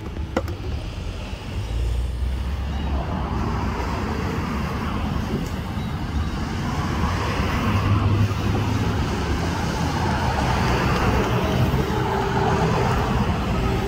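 Road traffic: cars and SUVs driving past close by, a steady wash of tyre and engine noise that swells as each vehicle goes by.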